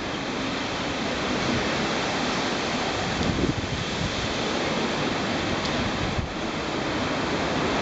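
Typhoon windstorm: a dense, steady rush of wind and driving rain, with gusts buffeting the microphone.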